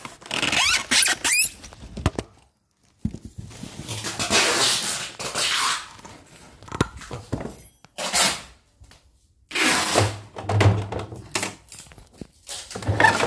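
Handling noise from a plastic-bodied portable embroidery machine being lifted out of its styrofoam packing and set down: irregular rubbing, squeaking and knocks, with two short pauses.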